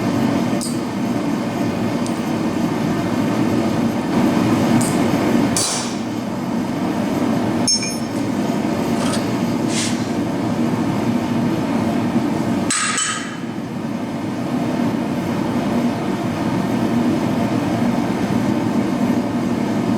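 Steady roar of a propane forge burner, with a handful of scattered metal-on-metal clinks and taps of hammer, tongs and small workpiece at the anvil. One louder ringing strike comes about two-thirds of the way through.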